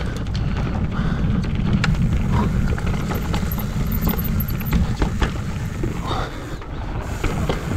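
Downhill mountain bike riding fast over a trail: steady rumble of wind on the microphone, with scattered clicks and knocks from the bike and tyres over rough ground.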